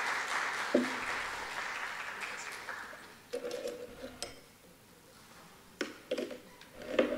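Hall applause fading out over about three seconds, followed by a few scattered clicks and short low sounds.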